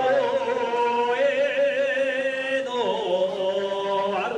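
A group of men chanting a Shinto ritual song in unison. They hold long notes with a slow waver, and the pitch steps down about two and a half seconds in and again near the end.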